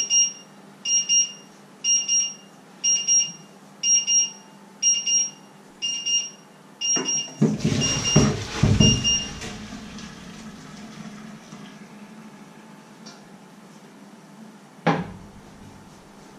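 Electronic timer beeping in quick pairs about once a second. About seven seconds in, a pot of pasta and water is poured into a metal colander in a stainless-steel sink: a loud gushing splash with clanks, as the beeping stops. A single sharp knock near the end.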